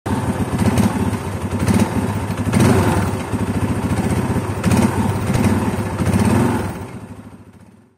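Bajaj Pulsar 180's single-cylinder four-stroke engine running through twin aftermarket mufflers, with a few brief surges in level, then fading out over the last second or so.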